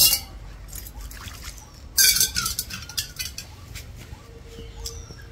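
Clinking and scraping of a metal feeding bowl as food is scooped out by hand: two sharp bursts about two seconds apart, then a few lighter clicks.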